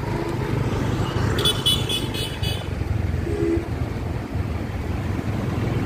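Street traffic noise with a steady low engine rumble, and a high-pitched horn beeping in rapid pulses for about a second, starting about a second and a half in.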